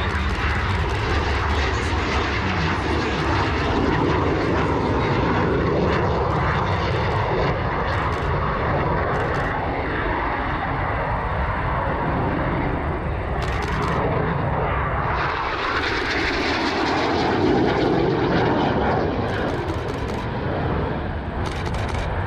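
Jet engine noise of Frecce Tricolori Aermacchi MB-339 jets flying past, their pitch sliding as they go by. The roar swells again about fifteen seconds in.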